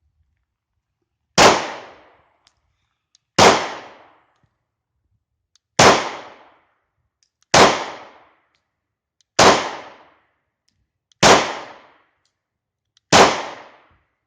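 Seven single 9mm shots from a German P.08 Luger pistol, fired deliberately about two seconds apart, each crack dying away over about half a second. This is one full seven-round magazine.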